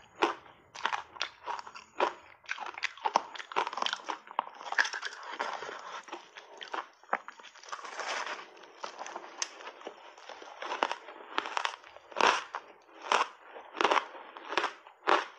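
Ice coated thickly in dry matcha powder being bitten and chewed. It makes a run of sharp crunches every second or less, with a denser, unbroken stretch of crunching in the middle.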